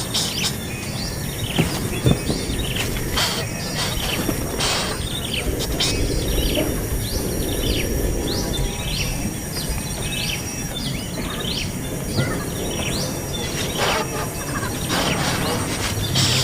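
Small birds chirping: a long run of short, high, quickly sliding chirps, roughly one or two a second, typical of hungry nestlings begging for food.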